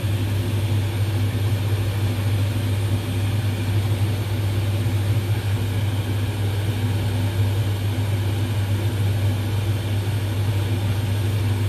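A steady low mechanical hum at one constant pitch, unbroken throughout.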